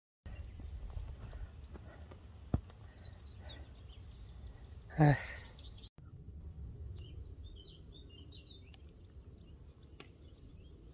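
Wild birds singing: a quick series of short, high down-slurred whistles, then scattered chirps later on, over a low rumble of outdoor background noise. A sharp click about two and a half seconds in and a brief louder sound about five seconds in.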